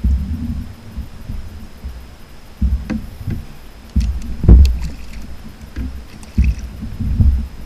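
Water slapping against the hull of a fishing kayak in low, irregular thumps, with a few sharp knocks, the loudest about four and a half seconds in.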